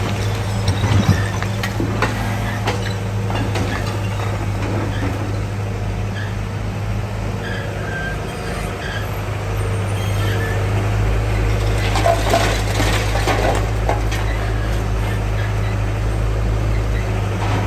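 Excavator running with a steady hum, with scattered knocks and clatter in the first few seconds and a scraping rush about twelve seconds in.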